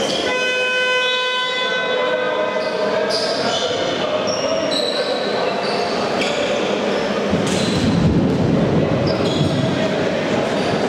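A game buzzer sounds one steady, many-toned blast lasting about two seconds near the start. Then shoes squeak on the court in short high chirps over the hubbub of players and spectators in a large hall, which swells about eight seconds in.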